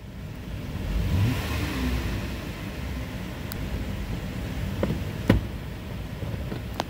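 Chrysler 3.6L V6 engine, its speed rising briefly about a second in and then settling to a steady idle. A sharp click about five seconds in.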